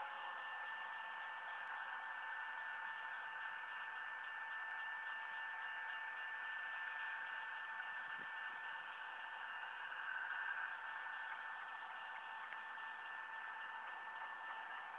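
Steady static hiss, like a radio's, with a faint steady tone running through it.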